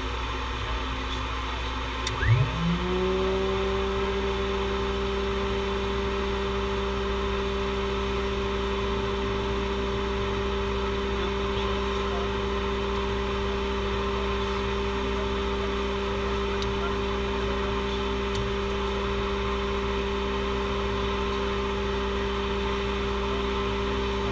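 A steady drone of ground equipment runs throughout. About two seconds in, an electrical unit of the Lightning jet's systems switches on with a brief jolt and a quickly rising whine, then holds a steady hum. The jet engine itself is not yet running.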